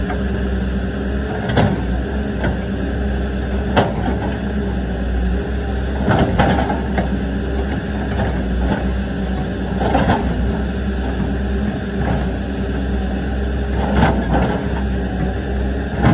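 Caterpillar 320D tracked excavator's diesel engine running steadily while it digs. Sharp clanks and scrapes of the steel bucket on earth and rubble come every few seconds.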